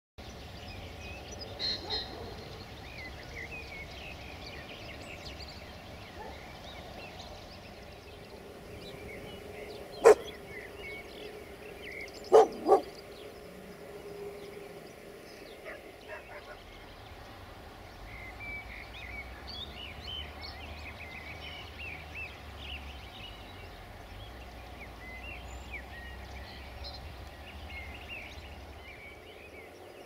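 Small birds chirping over outdoor ambience, with a dog barking three times: once about ten seconds in and twice in quick succession about two seconds later.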